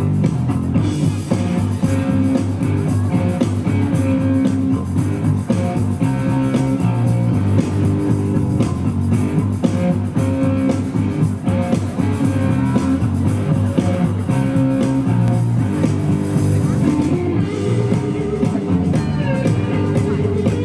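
Rock music with guitar, playing continuously at a steady, loud level.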